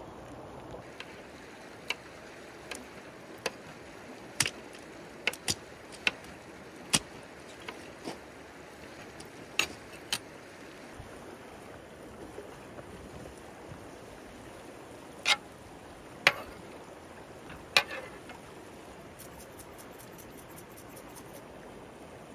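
Steady rushing of a river, with about fifteen sharp clicks and knocks at irregular intervals, most in the first ten seconds and a few more later.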